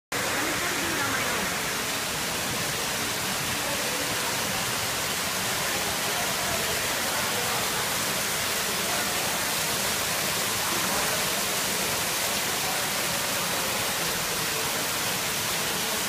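Lobby rock waterfall cascading over stones: a steady, unbroken rush of falling water.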